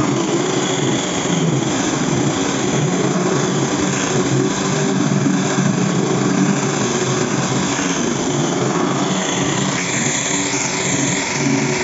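Power grinder running steadily as it grinds and shapes wood.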